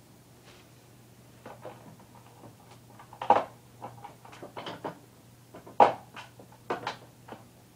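A series of irregular knocks and clicks, the loudest about three seconds in and again near six seconds, over a steady low hum.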